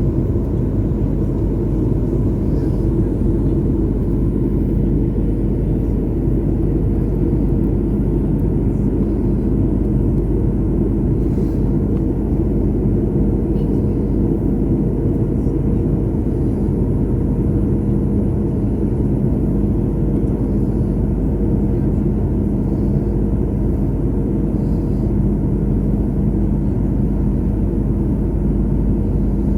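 Steady cabin noise of a jet airliner in flight, heard from inside the cabin: a low rumble with a constant engine hum that holds level throughout.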